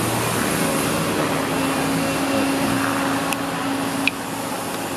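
Diesel engine of a loaded six-wheel dump truck running steadily as it creeps over loose dirt, with one sharp click about four seconds in.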